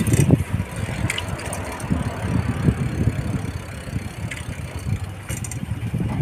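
Low, uneven rumble of wind buffeting a handheld phone's microphone, softer in the middle, with a few faint clicks.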